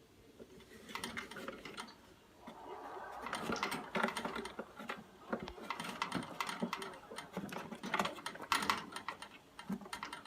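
Rapid, irregular clicking and rustling from a kitten scrabbling at and handling something, growing busier a few seconds in.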